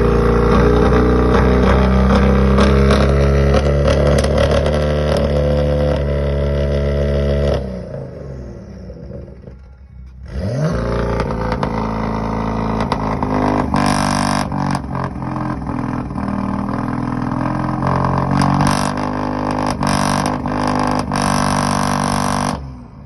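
BMW M car's turbocharged straight-six exhaust, swept up into high revs and held there as a steady drone for about eight seconds, then after a short lull revved up again and held, with a run of sharp cracks in its second half.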